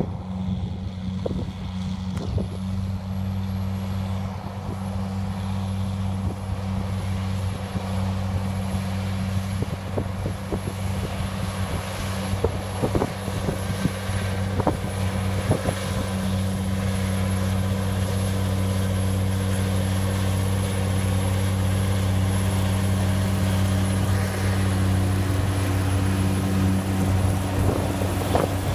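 Large four-wheel-drive tractor's diesel engine working steadily under load as it tows a heavy disc chain harrow through stubble. It is a low, even drone that grows louder as the rig approaches.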